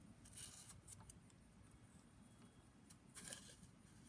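Near silence with a few faint, brief scrapes, the loudest about three seconds in: a homemade tool twisting the ring of an Edison Diamond Disc reproducer as it is tightened down over the diaphragm.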